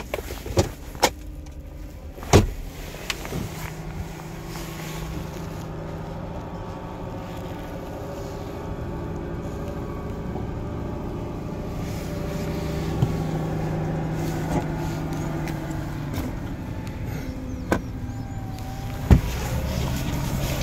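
A motor vehicle engine running steadily, with an even hum that grows gradually louder; a few sharp knocks stand out over it.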